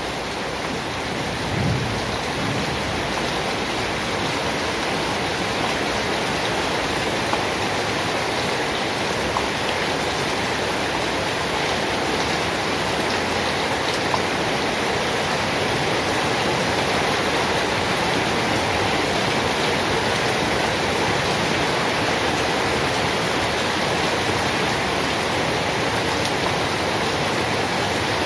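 Steady rain falling, a dense even hiss that grows slightly louder over the first few seconds, with a brief low thump about two seconds in.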